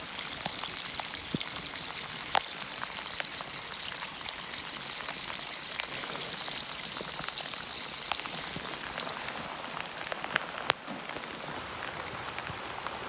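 Rain shower falling steadily, an even patter with single drops tapping close by now and then; the sharpest taps come about two seconds in and near eleven seconds.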